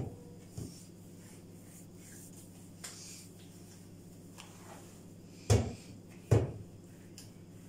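Hands handling bread dough on a kitchen worktop: a couple of light knocks, then two louder thumps about a second apart past the middle, over a low steady hum.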